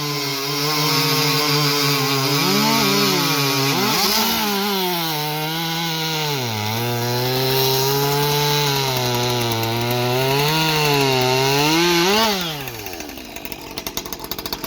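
Two Husqvarna 550 XP 50cc two-stroke chainsaws, one stock with an expansion pipe and one ported, cutting wood at full throttle, their pitch dipping and recovering as the chains load up in the cut. About twelve seconds in the engines come off throttle and drop to a low idle.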